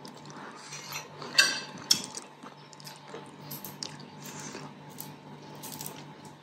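Quiet table sounds of eating: a metal spoon clinks against a plate about a second and a half in, followed by a sharp click and a few faint handling ticks, over a low steady room hum.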